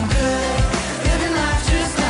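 Pop song with a voice singing over a steady drum beat.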